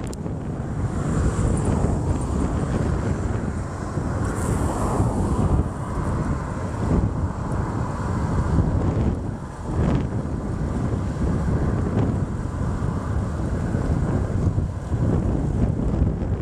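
Strong wind buffeting the microphone in a steady low rumble that rises and falls with the gusts, with sea surf underneath.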